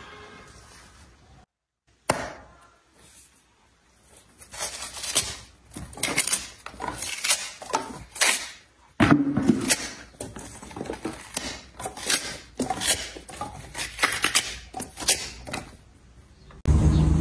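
Ripe watermelon being cracked open and torn apart by hand. A sharp crack comes about two seconds in, followed by a run of irregular crisp snaps and wet tearing of rind and juicy flesh, with one louder crack about halfway through.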